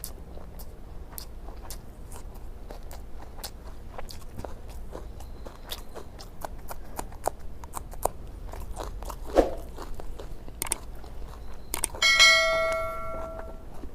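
Close-up eating sounds: chewing and small wet mouth clicks through a meal of egg curry, fish and rice. A thump comes about nine and a half seconds in, and about twelve seconds in there is a clear metallic ring that dies away over a second or so.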